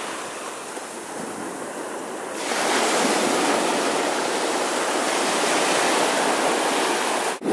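Small ocean waves breaking and washing up over a sandy beach at the water's edge, the surf growing louder about two and a half seconds in.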